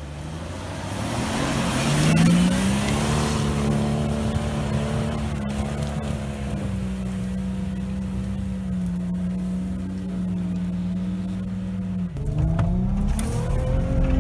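Jeep Wrangler YJ engine revving up and held at high revs while it churns through deep snow with its wheels spinning and throwing snow. The revs drop suddenly about twelve seconds in, then an engine revs up again near the end.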